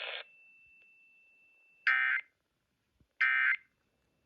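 Emergency Alert System SAME end-of-message data bursts: two short, loud, buzzy digital bursts about a second and a half apart, signalling the end of the alert. Before them, the broadcast audio cuts off a fraction of a second in and a faint steady high tone lingers.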